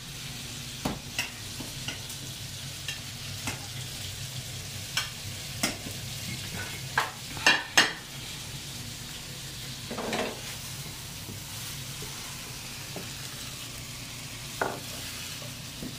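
Food sizzling in frying pans with a steady hiss, while a serving utensil clinks and knocks against ceramic plates several times as black rice is dished up, with a cluster of sharp clinks near the middle.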